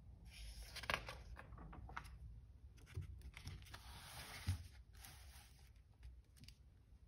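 Paper magazine pages being folded, turned and smoothed flat by hand: a rustle of paper for about five seconds, with a few sharp taps, then quieter handling near the end.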